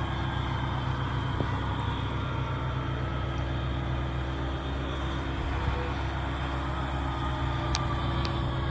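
Fire truck's heavy diesel engine running steadily, with faint tones higher up that slowly fall in pitch.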